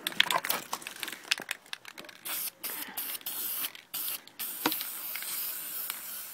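Aerosol spray paint can hissing in a few short bursts, then one long steady spray, coating an airsoft rifle. A few clicks and rustles come before the spraying.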